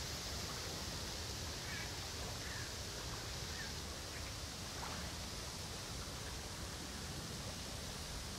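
Steady outdoor riverbank ambience: an even hiss of wind and moving water, with a few faint, short bird chirps in the first five seconds.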